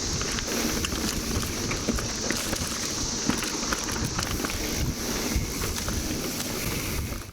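Periodical (17-year) cicadas droning in a steady high chorus over the uneven rumble of wind on the microphone and mountain-bike tyres rolling on a dirt trail, with scattered clicks and rattles. The sound cuts off abruptly near the end.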